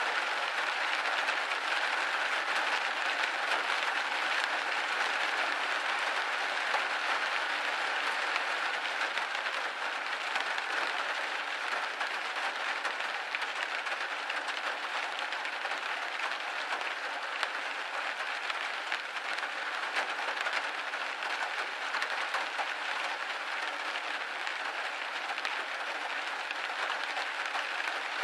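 Steady, dense rain hitting a window pane.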